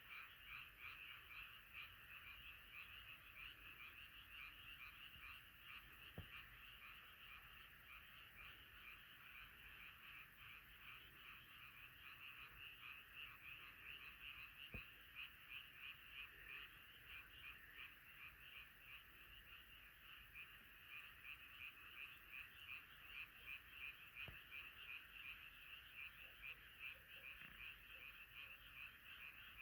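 A chorus of many frogs calling together, a dense mass of rapid pulsing calls that swells and eases in waves. It is faint, with a few soft clicks.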